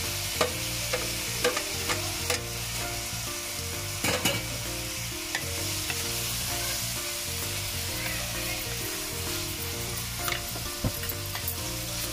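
Sliced onions, green chillies and tomato wedges sizzling in oil in a metal kadai, stirred with a wooden spatula that knocks and scrapes against the pan every so often, most sharply about four seconds in.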